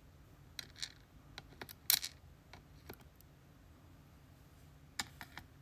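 Light, scattered clicks and taps of small lock pins and master wafers being handled and set down as a disassembled GeGe pExtra cylinder is sorted. The loudest click comes about two seconds in, and three quick ones come together near the end.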